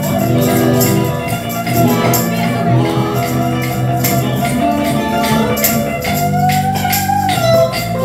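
A band jamming live: sustained electric guitar chords over a tambourine jangling in a steady beat.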